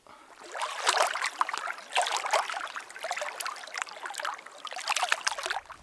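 Small waves of lake water lapping and splashing against shoreline rocks, in irregular clusters of little splashes.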